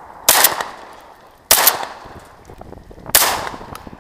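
Three shotgun shots at flying ducks, about 1.2 and 1.6 seconds apart, each followed by a short echoing tail.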